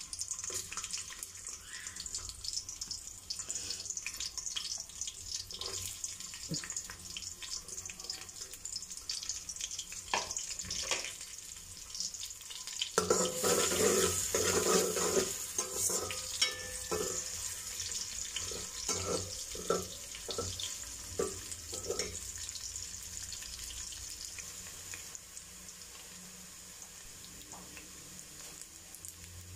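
Sliced onions sizzling as they fry in hot oil in a metal degchi (cooking pot). A metal spoon stirs and scrapes against the pot, loudest about halfway through with knocks for a few seconds after; the frying settles to a quieter steady sizzle near the end.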